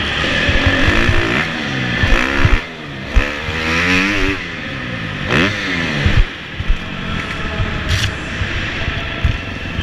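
Supercross motorcycle engine heard from an onboard camera, revving up and easing off in repeated rising and falling sweeps as the rider works the throttle through turns and over jumps. It drops off briefly twice, and there are a few sharp knocks from the bike and track.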